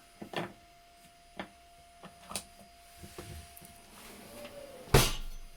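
Scattered light clicks and taps of a detergent tablet being handled and put into a Bosch dishwasher's dispenser, then one loud sharp clack about five seconds in.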